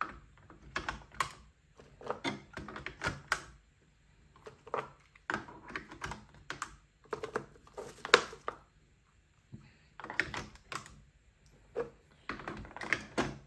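Ink cartridges being handled and pressed into the print-head carriage of a Canon Pixma Pro 9500 Mark II: a run of irregular plastic clicks and taps as each cartridge seats. The loudest click comes about eight seconds in.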